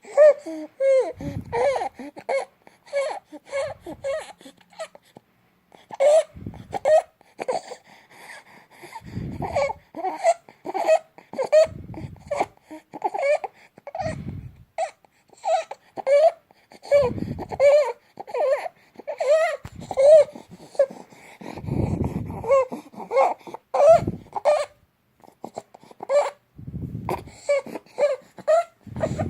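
A two-month-old baby's noisy breathing with stridor: a short, high, squeaky sound on each breath, about two a second, mixed with whimpering. A deeper, rougher sound comes every couple of seconds.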